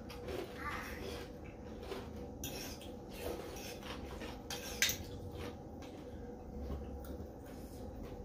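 Fork and spoon clinking and scraping against a ceramic noodle bowl during a meal, with scattered light clicks and one sharper click about five seconds in.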